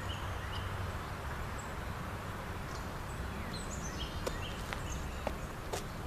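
Backyard ambience: small birds chirping over a steady low background rumble. A few sharp steps or clicks come near the end.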